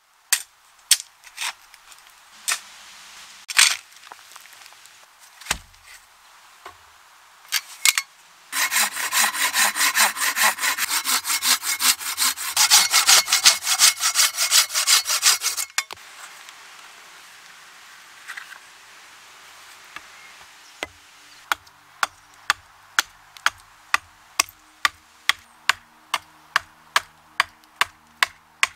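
Hand saw cutting through wood in quick strokes for about seven seconds, after a few scattered knocks. Then a hatchet chops steadily into a wooden stake on a chopping block, about two sharp strikes a second, carving it to a point.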